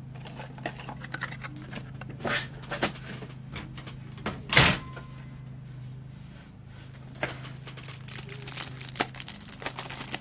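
Trading cards and their plastic packaging being handled: scattered rustling, crinkling and light clicks, with one sharper, louder clack about halfway through, over a steady low hum.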